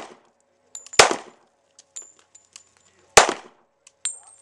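Two pistol shots from a Springfield Armory XD semi-automatic, about two seconds apart, each with a short ringing echo, followed near the end by a lighter metallic click.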